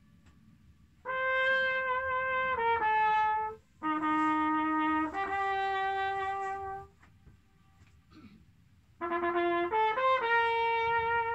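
A trumpet-like brass horn played live aboard the boat, the traditional Königssee echo demonstration. It plays three phrases of held notes stepping between pitches, starting about one, four and nine seconds in. Faint tones hang in the pauses as the echo comes back off the surrounding cliffs.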